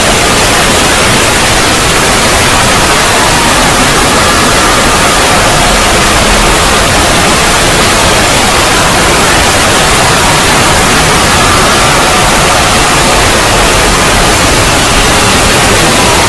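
Loud, steady wall of harsh static-like noise from a heavily distorted, extended 'void' logo sound effect, with faint wavering tones buried in it.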